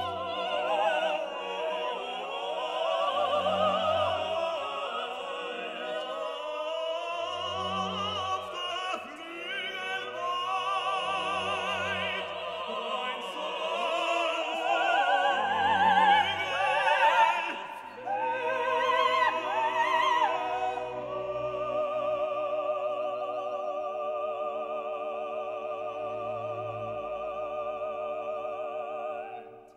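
Background music: operatic singing with vibrato over instrumental accompaniment, with a low bass note about every four seconds. A little past halfway it changes to long held notes, and it fades out right at the end.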